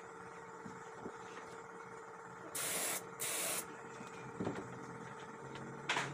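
Two short hissing bursts of pressurized spray, each about half a second long with a short gap between them near the middle, and a briefer puff near the end, over a faint steady hum.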